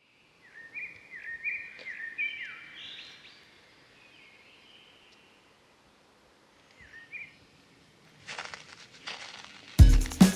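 Bird calls: a quick series of short chirps that dip and rise in pitch, fading out after about three seconds, with one more chirp a few seconds later. A short hissing rush follows, and loud music with a heavy beat kicks in just before the end.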